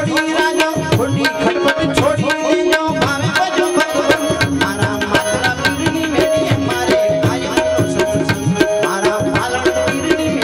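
Instrumental interlude of a Gujarati bhajan: tabla playing a fast, steady rhythm under a held melody line from an accompanying instrument, with no singing.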